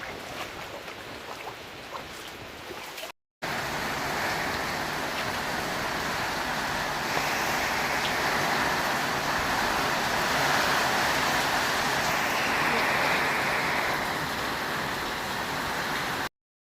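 Steady rushing water noise of the flood, an even hiss without any tone. It drops out for a moment about three seconds in, comes back louder, and cuts off abruptly just before the end.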